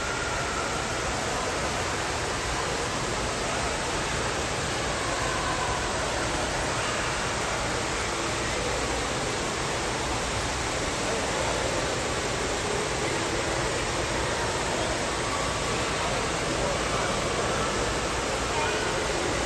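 Steady rushing of falling water from an artificial waterfall.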